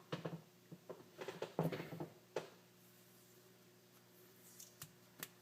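Faint clicks and short rustles of small wires and electrical tape being handled, clustered in the first couple of seconds and again briefly near the end, over a faint steady hum.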